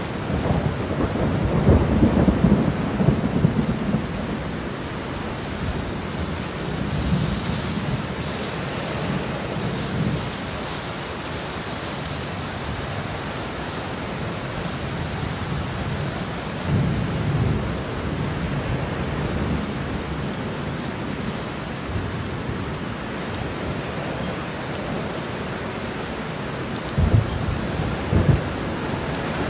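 Large tractor-trailer fire burning: a steady crackling hiss with low rumbling surges, and two short low thumps near the end.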